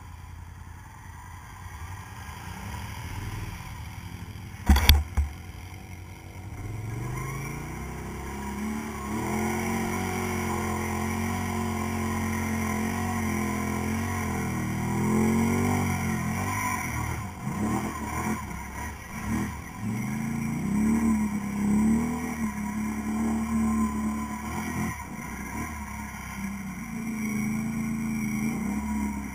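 ATV engine heard from on board, revving up and down repeatedly as the quad ploughs through deep muddy water. A couple of sharp, loud knocks come about five seconds in.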